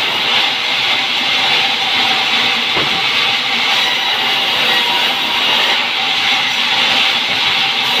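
Band sawmill blade cutting lengthwise through a pine log: a loud, steady, high-pitched rushing noise from the saw running in the wood.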